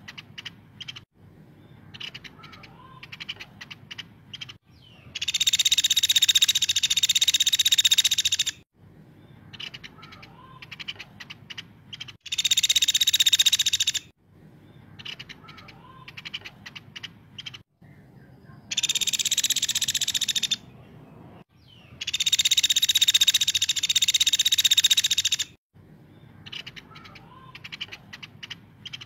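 A caladi, a small woodpecker, calling in full song. It gives four loud, rapid buzzing trills of two to four seconds each, and between them come quieter clusters of sharp ticks.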